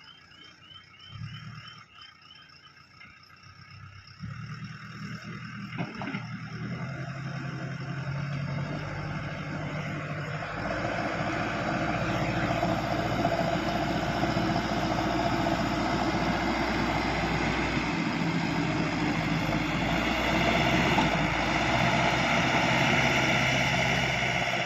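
Diesel engine of a JCB excavator running, starting about four seconds in and growing steadily louder, with a low hum and heavy rumble throughout.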